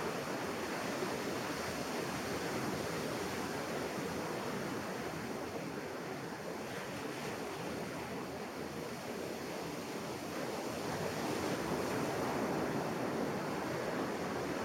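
Ocean surf breaking and washing up onto a sandy beach: a steady rush that eases a little midway and builds again later.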